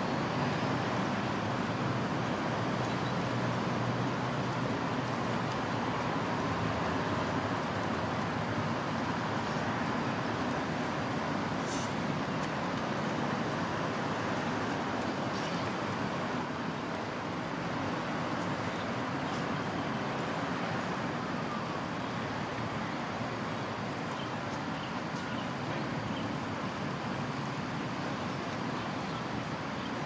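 Steady road traffic noise, an even wash of passing vehicles with no distinct events standing out.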